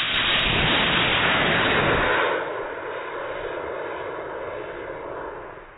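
Model rocket's solid-fuel motor igniting and burning on the launch pad: a sudden loud rushing hiss for about two seconds, then a softer rushing that fades away near the end.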